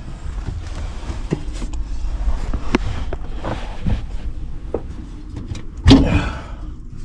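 A person moving about in a cramped attic and handling equipment: rustling, scattered clicks and knocks over a low rumble, with a louder knock about six seconds in.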